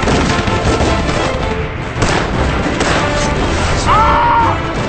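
Battle sound effects: repeated gunfire and explosions over dramatic background music.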